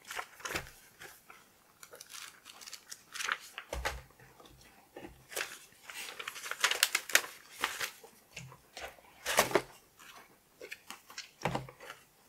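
Paper and cardboard rustling and crinkling as hands handle a manual and printed leaflets inside a cardboard box, with a couple of dull knocks against the box.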